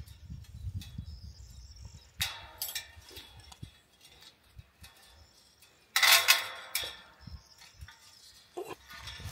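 Hands working steel fence wire at the base of a woven-wire fence: light metallic scraping and clinks, with a short scrape about two seconds in and a louder rasping noise about six seconds in.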